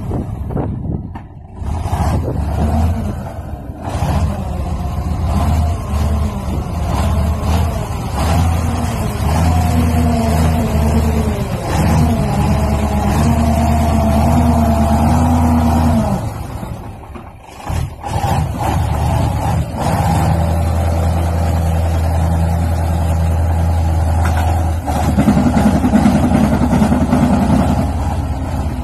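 Heavy off-road truck engine labouring under load as the truck churns its six wheels through deep mud. The revs rise and fall, with a short drop about 17 seconds in and a louder push near the end.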